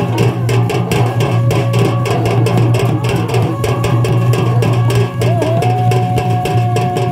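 Live Chhau dance music: fast, steady drumming with a melody over it, the melody settling into one long held note about five seconds in that slides down near the end.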